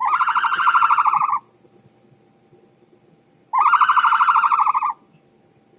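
A rapidly pulsed animal call, heard twice, each call lasting about a second and a half.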